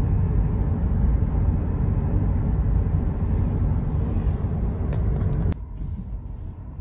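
Road noise heard from inside a moving car's cabin: a steady low rumble of tyres and engine. A little over five seconds in it drops suddenly to a quieter rumble, just after a couple of faint clicks.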